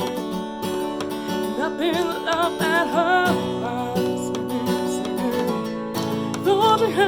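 Acoustic guitar strummed, with a voice singing held, wavering notes about two seconds in and again near the end.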